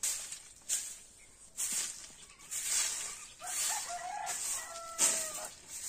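Stiff bundle broom sweeping bare dirt ground in short scraping strokes, one every second or so. In the second half a chicken gives two drawn-out calls.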